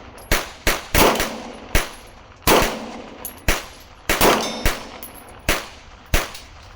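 Handgun shots fired in a string at steel targets: about a dozen sharp reports at an uneven pace, some followed by a short ringing of the steel.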